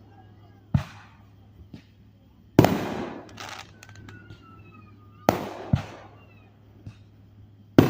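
Fireworks going off: a string of sharp bangs, five loud ones and a couple of fainter pops, the loudest about two and a half seconds in, each big one trailing off in an echo.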